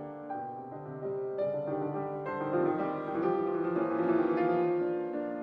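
Background music: a piano playing a gentle melody, one note after another.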